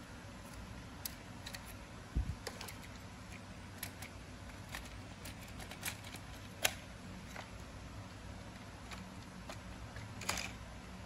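Scattered light plastic clicks and taps as a toy tractor's front-loader arm, grab and wheels are handled and moved, with one low thump about two seconds in and a short cluster of clicks near the end.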